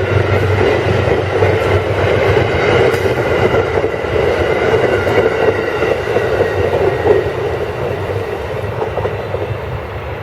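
Amtrak passenger train rolling past, a steady rush of wheels on rail with a low rumble underneath, growing quieter over the last couple of seconds as it moves away.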